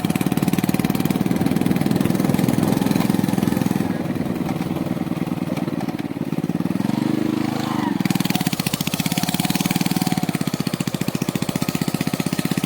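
A small engine running steadily with a fast, even pulse, its pitch rising briefly and dropping back partway through.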